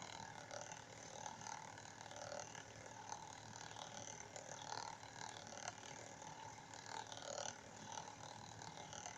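Water gurgling unevenly and without pause as it swirls in a water tornado vortex.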